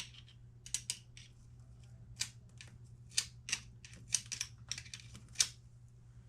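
Paint stripper being sprayed onto an engine case in about a dozen short, irregularly spaced hissing squirts.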